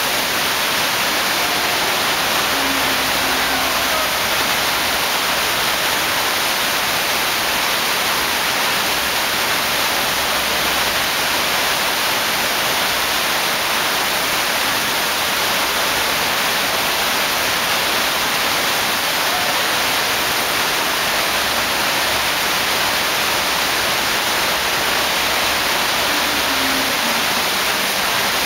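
Steady, loud rush of water from a flowboarding sheet-wave machine, its jets driving a thin sheet of water up the padded slope and throwing up spray.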